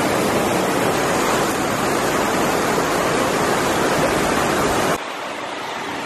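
Heavy tropical downpour: a loud, steady hiss of rain. It cuts off suddenly about five seconds in, leaving a quieter hiss.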